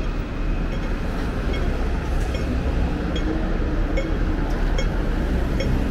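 Steady city street din: a low traffic rumble and general hubbub, with faint short ticks repeating about once a second.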